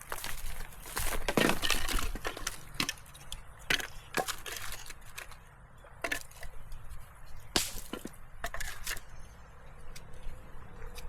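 Dry sticks snapping and cracking in irregular sharp bursts, with a dense run of snaps about a second in and single cracks every second or two after.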